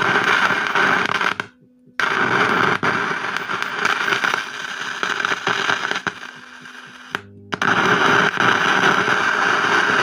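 Home theatre speaker giving a loud buzzing noise as the input pin of the amplifier IC is touched by hand, cutting out briefly twice when the touch is lifted. The buzz is the hum test: it shows that this channel's amplifier IC is passing signal.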